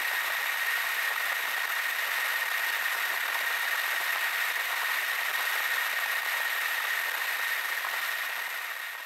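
Steady hiss of noise with a faint high tone running through it, fading out near the end.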